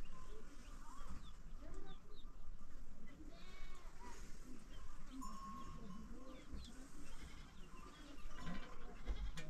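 Goats bleating repeatedly, with many short high chirps scattered throughout.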